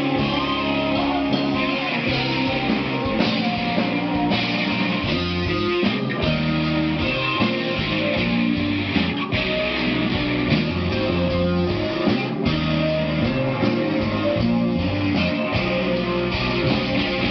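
A rock band playing live: electric guitar chords over a drum kit, loud and continuous.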